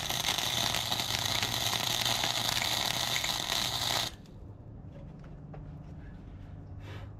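Wire-feed welding arc crackling steadily as a bead is laid on the steel mower deck, stopping abruptly about four seconds in; after that only a few faint clicks.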